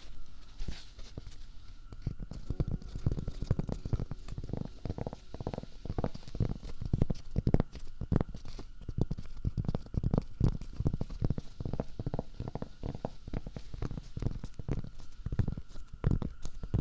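Rapid, irregular soft taps and pops close to the microphone, several a second, over a faint steady tone.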